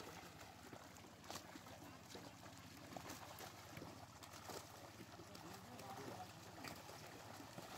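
Faint splashing of fish thrashing inside a seine net pulled through pond water, with a few sharper splashes.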